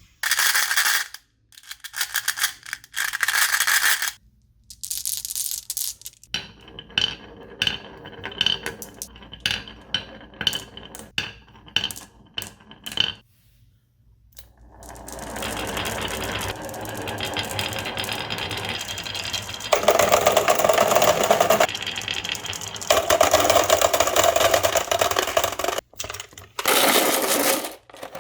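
Marbles clattering and rolling down a marble run. Bursts of rattling give way to a run of quick clicks, then a long stretch of continuous rolling with more clatter near the end.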